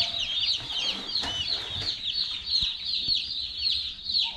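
A brood of newly hatched Cornish Cross chicks peeping together: a continuous chorus of many overlapping high-pitched chirps.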